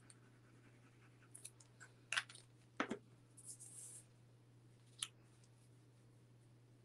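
Faint paper-crafting handling sounds: a few light taps and clicks and a short rustle of cardstock as a liquid glue bottle is used and set down and the paper pieces are laid on the card and pressed flat. A steady low hum runs underneath.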